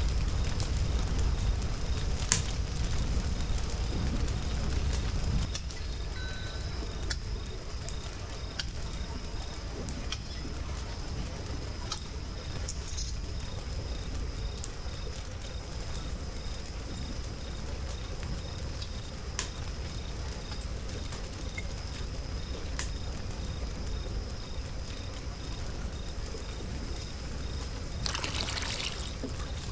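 Wood fire crackling with scattered sharp pops under a large pot of pomegranate juice cooking down to molasses, a low rumble in the first few seconds, and a short rushing sound near the end.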